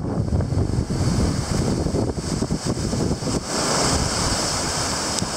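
Surf breaking against a rocky coast, with strong wind buffeting the microphone. About three and a half seconds in, a louder, hissing surge of water sets in and holds.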